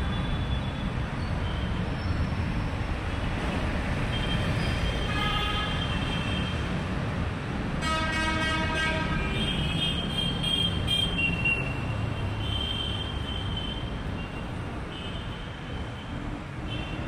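Busy city street traffic with a steady engine rumble and several vehicle horns honking, the longest and loudest blast lasting about a second and a half, starting about 8 seconds in.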